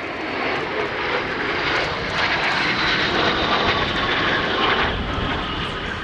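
A formation of four jet aircraft flying past low, the engine noise swelling to a peak midway and then easing off as they go by.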